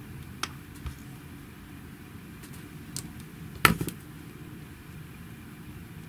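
A few small clicks and taps of plastic parts and a hand tool being handled while a hair straightener's handle is put back together. One sharper clack comes about three and a half seconds in, over a steady low hum.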